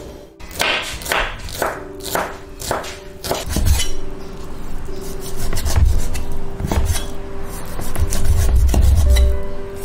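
Meat cleaver chopping pork belly on a wooden chopping board: a quick run of sharp chops about two a second, then slower, heavier chops.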